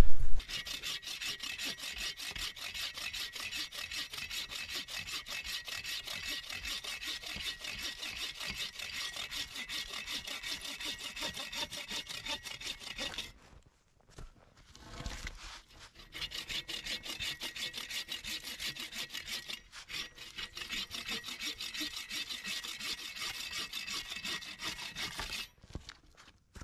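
Agawa Boreal 21-inch folding bow saw cutting through a birch log with steady back-and-forth rasping strokes. The strokes stop for a couple of seconds about halfway, with a short low knock, then carry on until just before the end.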